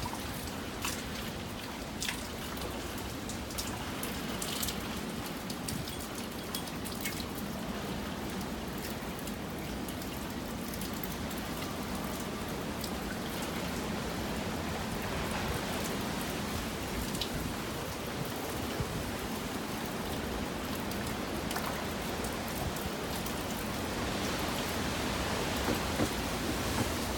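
Typhoon rain falling steadily, with scattered sharp drops striking close by. It grows a little heavier near the end.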